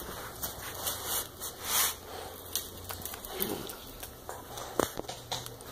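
Two English mastiff puppies play-wrestling on a wooden floor: irregular scuffling, snuffling and mouthing noises with scattered sharp clicks, and a brief faint whine about three and a half seconds in.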